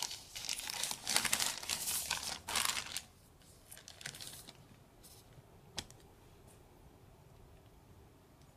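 Packaging being crinkled and torn as a box is unwrapped, busy for about three seconds. Then come a few fainter rustles and a single sharp click about midway.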